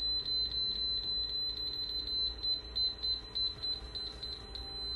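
Allenbuild AB11R red rotating laser receiver beeping as it picks up the laser beam: a high-pitched beep repeating about four or five times a second, which turns into a steady unbroken tone near the end.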